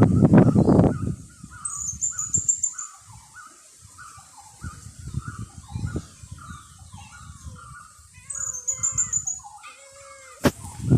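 Birds calling in a long run of short repeated calls, two to three a second, with a brief high chirping trill twice. Wind buffets the microphone loudly for about the first second and in weaker gusts after.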